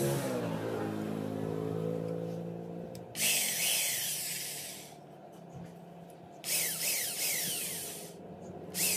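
Corded electric hand drill boring through a thin metal strip in bursts. Between bites the motor runs with a whine. Each time the bit cuts, about three seconds in, again about six and a half seconds in and just before the end, there is a loud harsh hiss, with quick repeated squeals of the bit on the metal.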